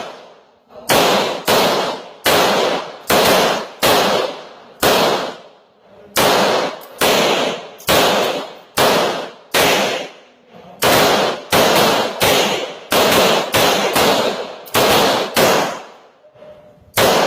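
Rapid 9mm pistol fire: about thirty shots in strings of roughly two a second, each trailing off in echo, with brief pauses about five and a half seconds in and again near the end.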